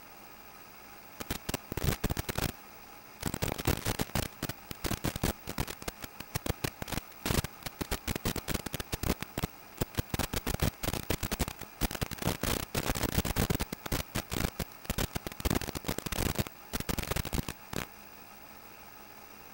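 Crackling radio static from an analog 5.8 GHz FPV video link, coming in bursts over a steady hiss and hum. It is dense from about three seconds in until shortly before the end, and comes with the link breaking up as reception weakens.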